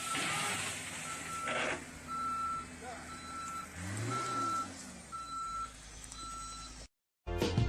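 Reversing alarm on a piece of heavy equipment beeping about once a second over a running diesel engine that briefly revs up and back down about four seconds in. The sound cuts off near the end, and music starts.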